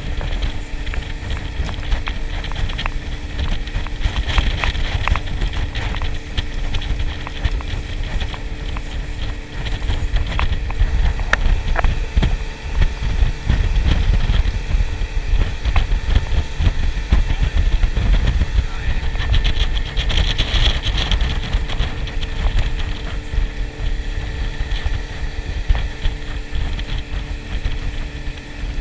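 Outboard motor running steadily at speed as a small boat crosses choppy water, with wind buffeting the microphone and scattered knocks from the hull.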